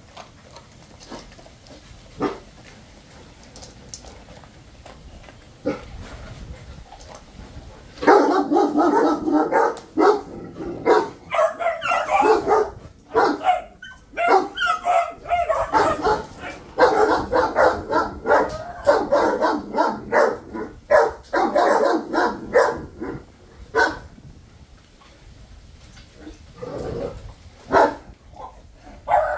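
Dog barking in rapid, sustained runs. The barking starts about eight seconds in, goes on for some fifteen seconds, and starts again near the end. Before it there are only a few faint knocks.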